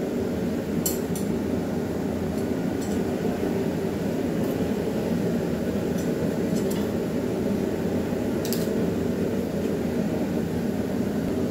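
Forge running with a steady rushing noise while the stock reheats, with several light metal clinks as pliers and tools are handled and set on the anvil.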